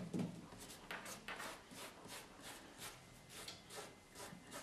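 Gloved hands rubbing and pressing fiberglass glass cloth down onto a patch to wet it out, a series of soft, quick rubbing strokes about three a second.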